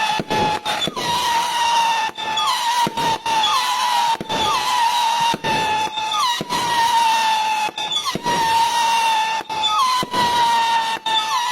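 Multi-shot whistling firework cake ('Llorona' / 'Alma en pena' type) firing shot after shot: a continuous high shrill whistle, each new shot starting with a short swoop in pitch about once a second, mixed with many sharp cracks and pops.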